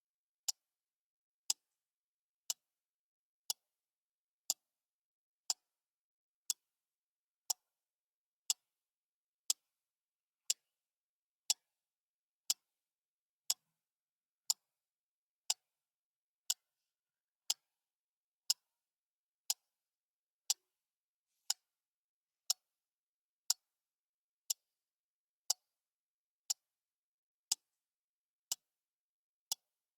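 Clock ticking steadily, one sharp, crisp tick a second, with silence between the ticks.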